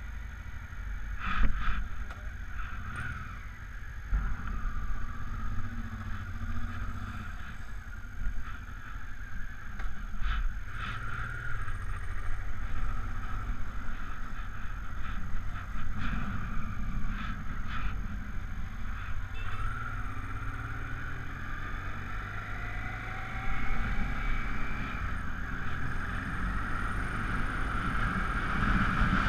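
Honda Africa Twin XRV750 V-twin motorcycle engine running as the bike rolls out and pulls away, with a few knocks early on. The engine pitch rises several times in the second half as it accelerates, and it grows louder near the end.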